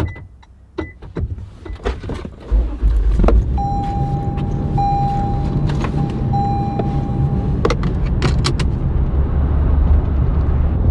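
Keys jangling and a few sharp clicks, then a Toyota 4Runner's V6 engine starts about two and a half seconds in and keeps running steadily. For a few seconds after the start a steady electronic warning chime sounds in short segments.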